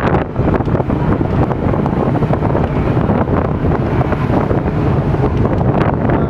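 Wind buffeting the microphone on a motorboat under way, with the boat's engine and the water rushing past the hull as a steady, loud noise underneath.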